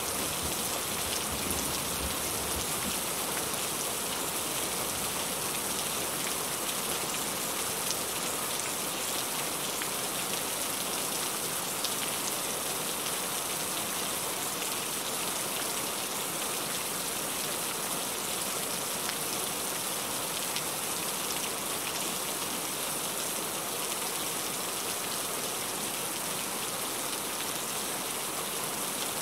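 Heavy rain falling steadily: an even hiss of rain on surfaces with scattered drop ticks. The tail of a low thunder rumble dies away in the first second or two.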